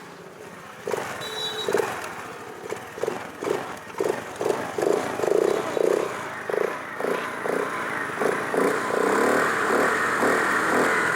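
Scooter engine with a KTM-style exhaust note, throttle blipped in short rev bursts about twice a second. Near the end the bursts run together into a steady, louder run.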